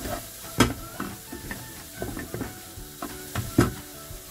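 Spatula stirring and scraping green peas and corn in a frying pan while they sizzle, with scattered sharp knocks of the spatula on the pan, the loudest about half a second in and near the end.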